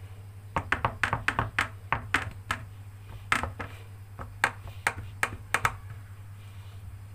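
A hand patting and pressing shredded kunafa dough down into a metal baking tray, making a quick run of sharp taps that then come further apart and stop about six seconds in. The dough is being pressed firmly into one even base layer.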